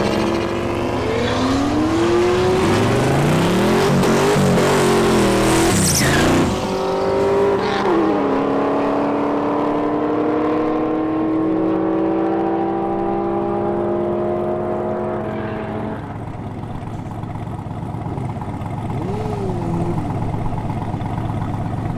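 Twin-turbo 408 cubic-inch LS V8 in a Camaro revving hard for the first few seconds. It is then held at steady high revs for about eight seconds, and settles back to a lower, quieter running about two-thirds of the way through.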